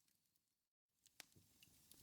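Wood fire in a fireplace crackling faintly with scattered sharp pops. The sound fades out to dead silence for a moment just under a second in, then comes back with a loud pop, like the seam of a looped recording.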